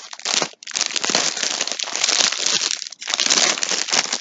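Plastic packaging crinkling and rustling as a skein of yarn is handled, with two brief pauses.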